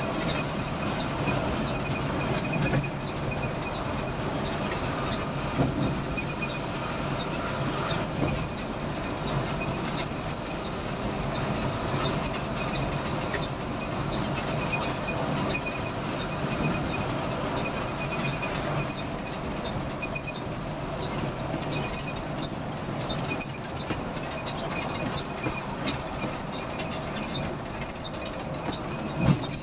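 Cabin noise inside a coach running at highway speed: a steady rumble from the engine and road, with small rattles and clicks from the body throughout and one sharper knock near the end.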